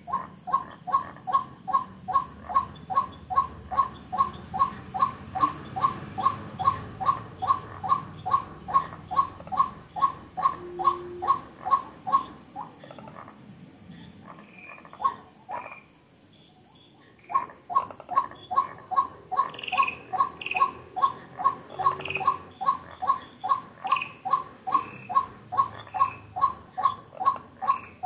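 White-breasted waterhen giving its monotonous repeated call, a croaking note about three times a second, breaking off for a few seconds midway and then resuming. Other small birds chirp faintly.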